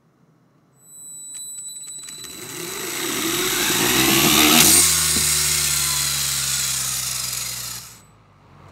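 Two BuWizz motors in a LEGO Technic launcher whirring through their gear train as they spin up a heavy LEGO top. The whirr grows louder for about four seconds, runs on steadily, then cuts off suddenly near the end.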